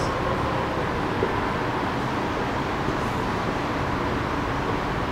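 Steady rushing background noise, with a few faint squeaks of a marker writing on a whiteboard.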